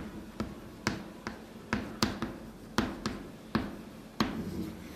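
Chalk clicking against a blackboard as words are written: about a dozen short, sharp taps, roughly two a second at an uneven pace.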